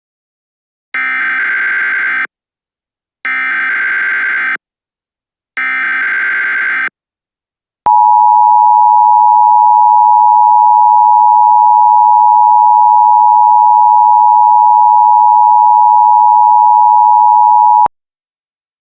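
Emergency Alert System broadcast opening: three data bursts of the SAME header, each just over a second long, encoding a tornado warning, then the EAS two-tone attention signal (853 and 960 Hz sounded together) held steady for about ten seconds before cutting off.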